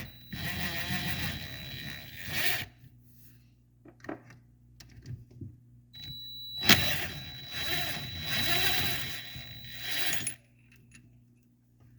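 Cordless power driver running out two 10 mm bolts from an ATV engine case: two runs of about two and a half and three and a half seconds, with a thin steady whine, and light metal clinks in the pause between them.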